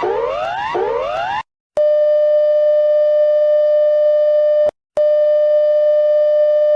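Electronic emergency alert tones. A rising sweep tone repeats about every three-quarters of a second and cuts off about a second and a half in. A steady, buzzy alert tone then sounds for about three seconds, breaks briefly and starts again.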